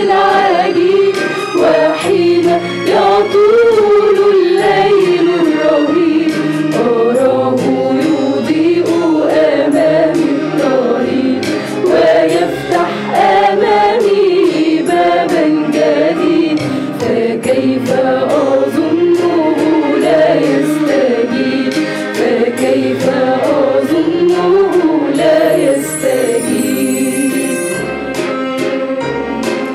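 Mixed choir of men's and women's voices singing a Christian hymn in Arabic.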